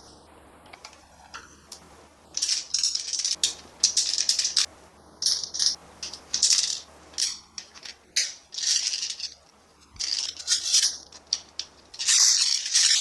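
Plastic toys being handled, rattling in repeated short bursts that start about two seconds in.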